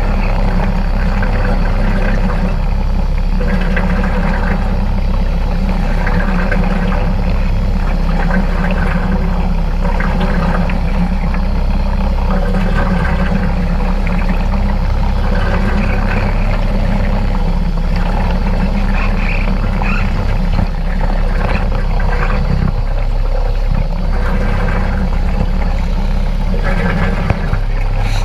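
Steady low motor hum from mini-sub underwater scooters, recorded underwater and muffled, with irregular bubbling from the air streaming out of the riders' helmets.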